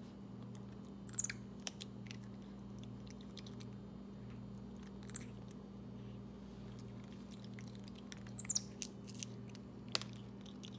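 White-faced capuchin monkey eating a chocolate-dipped ice cream cone: short, sharp bites and mouth smacks as it licks and chews, coming in a few separate clusters, over a steady low hum.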